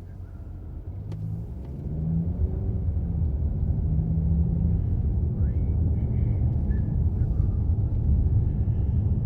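A car driving, with steady low engine and road rumble. The rumble grows louder over the first two seconds as the car picks up speed, then holds steady.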